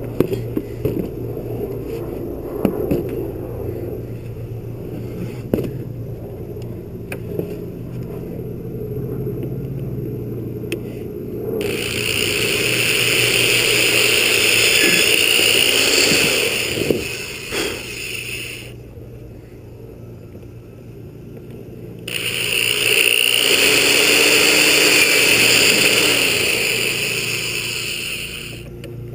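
A handheld power tool grinding against material in two stretches of about six to seven seconds each, over a steady low hum.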